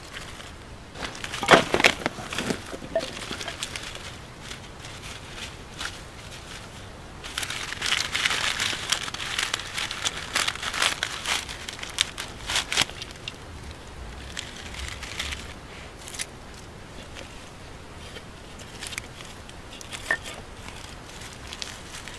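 Dry crunching and crackling in two bouts: a short one about a second and a half in, and a longer, denser one from about seven to thirteen seconds in, with a few scattered crackles after.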